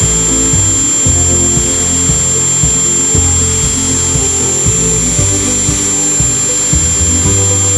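Homemade CNC router carving MDF. Its NEMA 17 stepper motors whine in tones that jump in pitch every fraction of a second as the axes change direction, over the steady high whine of the Dremel 3000 rotary tool cutting.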